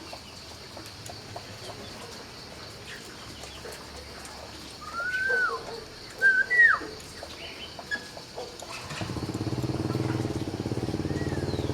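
A laughingthrush whistling a few loud, slurred notes that rise and fall, about halfway in. From about nine seconds in, the steady hum of a motorbike engine comes in and carries on.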